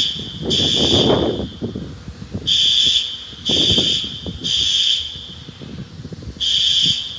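System Sensor SpectrAlert Advance fire alarm horns sounding the temporal-3 evacuation pattern: three short, high-pitched blasts, a pause, then three more. The first blast of the next set starts near the end.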